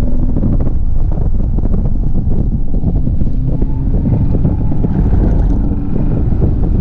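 A car driving with heavy wind buffeting on the microphone and the engine running underneath.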